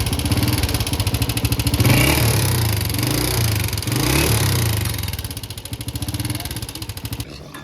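Honda motorcycle engine running, revved up briefly twice, then falling back; the engine sound stops shortly before the end.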